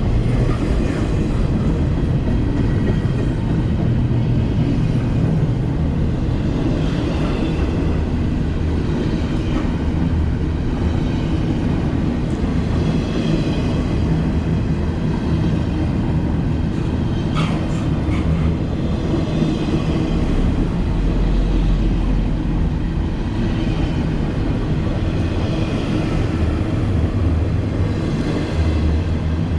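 Double-stack container freight train rolling past at close range: steady rumble and rattle of steel wheels on rail, with a brief high squeal a little past halfway.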